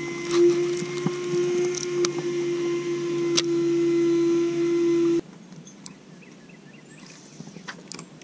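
MotorGuide electric trolling motor humming steadily, with a few sharp clicks over it, then cutting off abruptly about five seconds in, leaving a much quieter stretch with faint scattered ticks.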